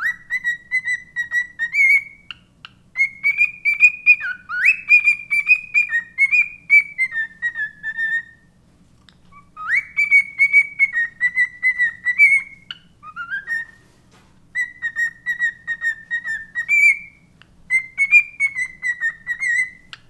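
Cockatiel whistling and warbling: quick runs of notes around one pitch with short upward slides. It comes in three long phrases, broken by brief pauses about 8 and 14 seconds in.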